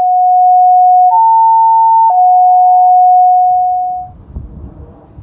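Loud electronic two-tone alert: pure steady tones step from a lower pitch to a higher one about a second in, then back down about two seconds in, and fade out around four seconds in. After that there is a low rumble with wind on the microphone.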